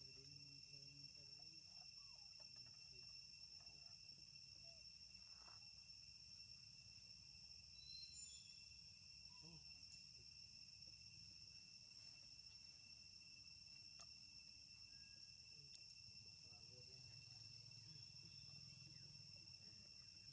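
Faint, steady high-pitched insect chorus that holds one unchanging pitch throughout, with a few faint clicks.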